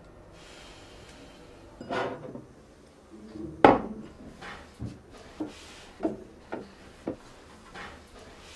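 Cloth scrubbing the inside of a microwave oven: a run of short rubbing, knocking strokes, the loudest a little under four seconds in, then a string of lighter strokes about every half second.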